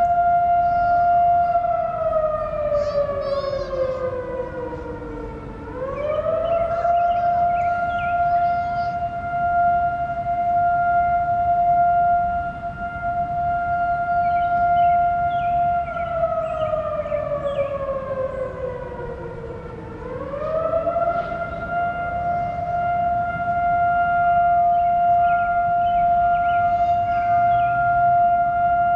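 STH-10 and Model 5A outdoor tornado warning sirens wailing together in a drill test. A steady high tone twice sinks slowly in pitch over about four seconds, then sweeps quickly back up and holds.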